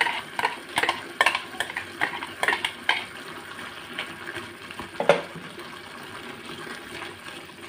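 Metal spoon scraping and clinking against a pressure cooker as ground tomato is stirred into chicken: a run of quick scrapes in the first three seconds, then quieter stirring and one louder knock about five seconds in.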